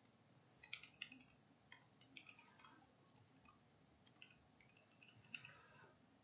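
Computer keyboard typing: faint, irregular runs of key clicks.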